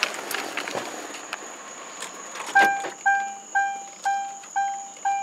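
A few light knocks and clicks, then from about halfway the 2004 Mercury Marauder's dashboard warning chime starts dinging, one clear tone about twice a second.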